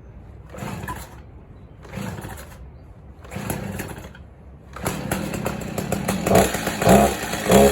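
Stihl chainsaw being pull-started in the run position after its first fire on choke: three short pulls of the starter cord, then the two-stroke engine catches about five seconds in and runs, revved up a few times near the end.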